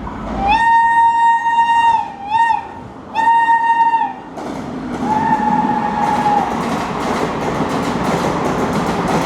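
Horn of a WAP-7 electric locomotive sounding four blasts: a long one, a short one, another long one, then a fainter one, each a single steady note that sags in pitch as it ends. From about halfway in, the rumble and wheel clatter of the passing train build up and hold steady.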